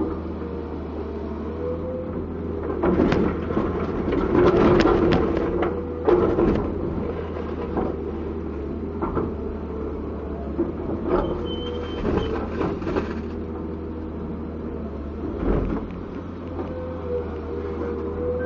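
Komatsu PC200-7 excavator running, its diesel engine giving a steady low hum under a faint wavering whine. Clusters of clanks and knocks come from about three to seven seconds in, again around eleven to thirteen seconds in, and once more near sixteen seconds.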